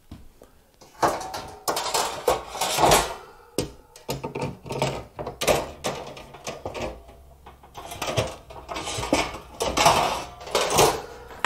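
Metal baking pans and racks clattering and knocking together as they are handled and moved, in about three bouts of clatter.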